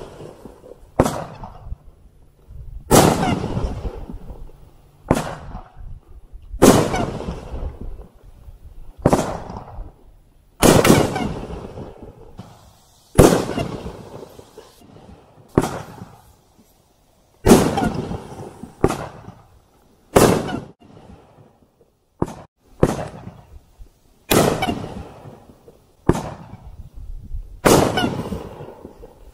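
500-gram consumer firework cakes firing shot after shot, a loud bang every one to two and a half seconds as each aerial star burst breaks, each followed by a fading echo.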